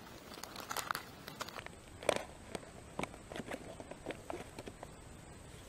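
Foil-lined freeze-dried meal pouch crinkling and rustling as it is torn open and handled, in irregular sharp crackles, the loudest about two seconds in.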